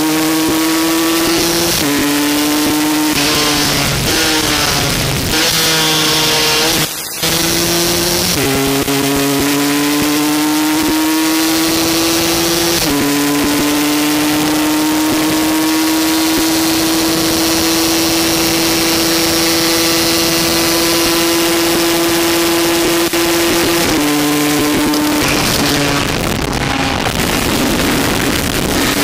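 125 cc road-racing motorcycle engine at full throttle, heard on board. It shifts up several times in the first half, the pitch rising within each gear and dropping at each shift. It then holds a steady high note for about ten seconds. Near the end the engine note falls away and wind noise takes over.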